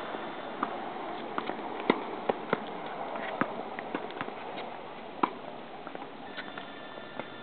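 Irregular wet clicks and smacks from a baby capuchin monkey licking and mouthing a plush toy close to the microphone, over a steady background hiss.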